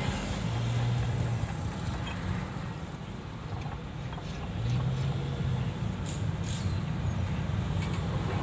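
Honda car's road and engine noise heard inside the cabin while driving in traffic: a steady low rumble, with a deeper engine hum swelling twice. A couple of faint clicks about six seconds in.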